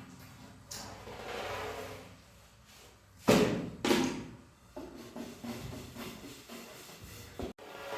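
Two loud knocks a little over three seconds in, half a second apart, among quieter rustling and clattering of things being handled.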